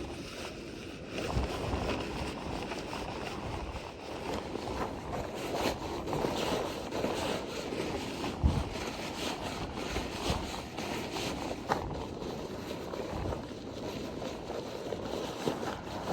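Wind buffeting the microphone, with irregular rustling and crinkling of a tarp being handled and stuffed into its bag, and a few sharper knocks.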